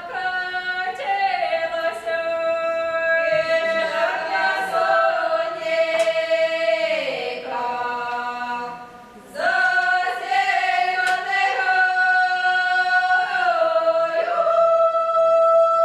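Ukrainian village harvest song sung unaccompanied in several parts by high, open-voiced women's voices in long held phrases. The voices break off about nine seconds in and start a new phrase.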